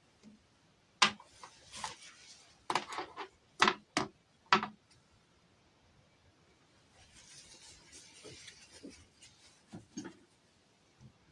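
Small objects being handled by hand: a quick run of sharp taps and clicks in the first few seconds, then soft rubbing and rustling, then a few light knocks.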